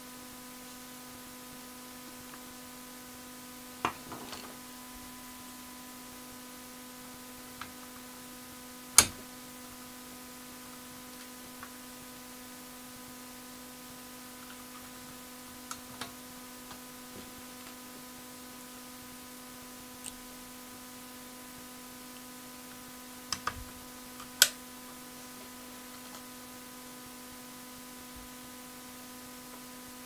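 Steady electrical hum throughout, with a few scattered sharp clicks and taps of a small screwdriver and plastic keyboard keys as the keys are screwed back onto the keybed; the loudest click comes about nine seconds in, with two more close together near the end.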